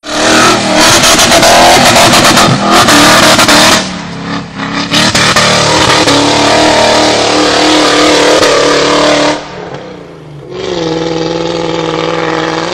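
Off-road 4x4's engine revving hard under heavy throttle as it drives through sand and up a steep sand hill, very loud. The revs drop back briefly about four seconds in and again near nine seconds, and near the end the engine holds a steadier, lower note.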